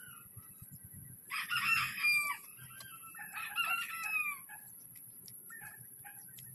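Rooster crowing twice, each crow about a second long, the pitch falling at the end of each.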